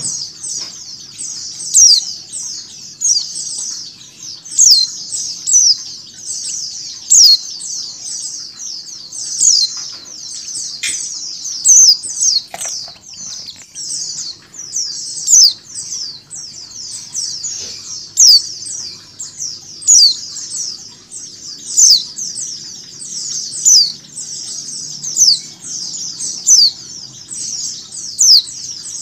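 White-eyes (pleci) chirping: a dense, unbroken chatter of quick, high, down-slurred chirps, a female white-eye calling over the sound of a flock. A louder chirp stands out about every one and a half to two seconds.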